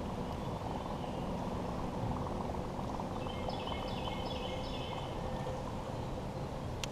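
Steady low outdoor rumble of river ambience, with a short high chirping phrase repeated about four times midway through.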